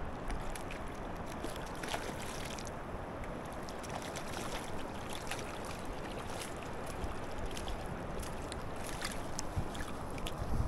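Steady rush of river current around a wading angler, with scattered small splashes and clicks.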